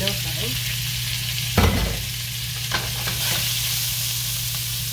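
Thinly sliced beef sizzling in oil in a hot nonstick frying pan while a silicone spatula stirs it. A dull thump about one and a half seconds in stands out as the loudest moment.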